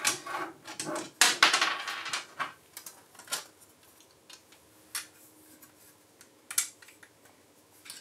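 3D-printed plastic parts clicking and rattling as they are handled: a screw with its printed washer being fitted while the perforated plate is held against its mounting brackets. The clicks come thick and fast for the first three seconds, then only a few single clicks follow.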